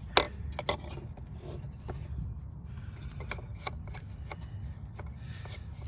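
Plastic airbox lid being pushed and handled: a sharp click just after the start and another soon after, then fainter clicks and plastic rubbing on plastic.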